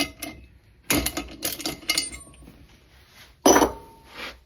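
Spark plugs and metal engine parts clinking and knocking as they are handled on the bench: a run of small clicks about a second in, then a louder metal knock with a brief ring about three and a half seconds in.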